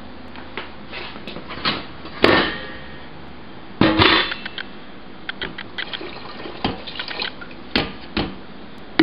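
Metal kitchen cookware being handled: a stainless steel pot lid and pots clank and knock several times, the loudest knock about four seconds in, with a few lighter ticks between.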